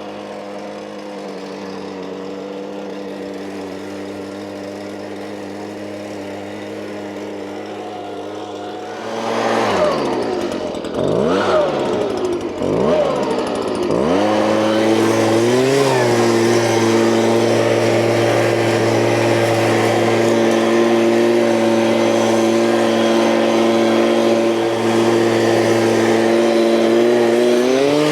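An engine idling steadily, then revved up and down several times over a few seconds, then running steadily at a higher speed, with a brief rise in pitch twice.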